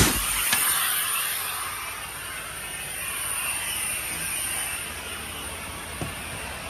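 Compressed air escaping from a semi-truck's gladhand air-line coupling as it is pulled off the trailer with the air not released first: a sharp pop, then a hiss that fades over a couple of seconds. A light knock about six seconds in.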